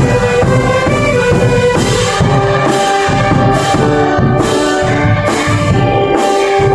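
Filipino brass band (banda) playing: trumpets, saxophones and sousaphones holding sustained chords, with percussion hits at a steady beat a little under a second apart from about two seconds in.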